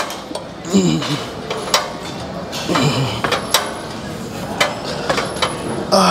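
Weight stack of a Nautilus Nitro leg extension machine clinking and knocking as the plates rise and fall through repetitions. A strained grunt, falling in pitch, comes from the lifter about three times, once per hard rep.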